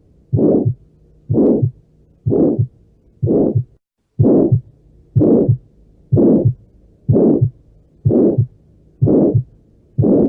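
Heart auscultation recording of aortic stenosis: a harsh systolic ejection murmur with every beat, each swell closed by a short low thud (the second heart sound), at a steady rate of a little over one beat a second.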